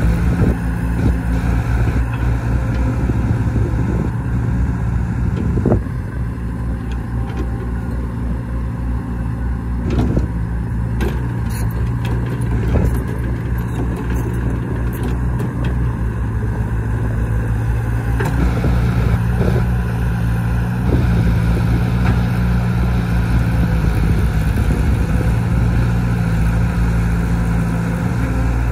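Tracked excavator's diesel engine running steadily under load as it works its boom and bucket, its pitch shifting partway through. A few short clanks and knocks from the bucket work stand out in the first half.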